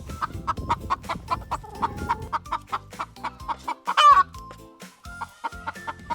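Chickens clucking in quick, repeated short notes, with one loud, wavering call about four seconds in.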